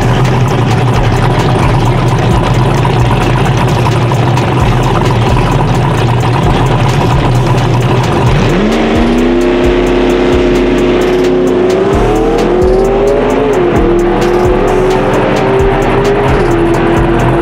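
Turbocharged small-block Ford V8 drag engine idling with a heavy, lumpy lope. About eight seconds in, the revs climb and are held high, wavering briefly in the middle and dipping slightly near the end.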